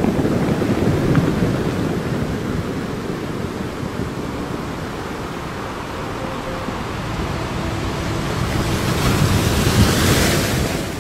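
Sea surf washing in, a steady rush of foaming water that swells, with a bigger wave surging up near the end.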